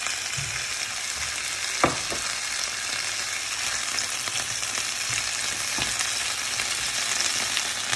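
Strips of beef and chicken breast with sliced mushrooms sizzling in hot olive oil in a grill pan, a steady frying hiss. A sharp click about two seconds in and a fainter one near six seconds.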